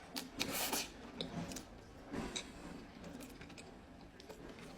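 Close-up crunching and mouth sounds of eating. A loud cluster of crunches comes about half a second in and another around two seconds in, with small clicks between.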